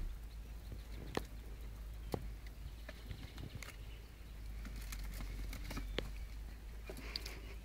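Kittens at play: scattered light taps and scratches of paws and claws, a few sharper clicks among them, over a steady low hum.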